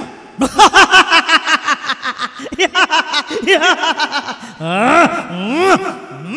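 A person laughing loudly in a dramatised voice: a quick run of short 'ha-ha' bursts, then a few long rising-and-falling peals near the end.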